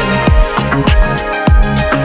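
Upbeat dance music with a steady kick-drum beat and a bass line, played from a DJ's loudspeaker.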